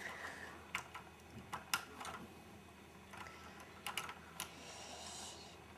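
Hard plastic LEGO pieces clicking and knocking lightly as a large brick-built model is handled and turned, a dozen or so scattered clicks.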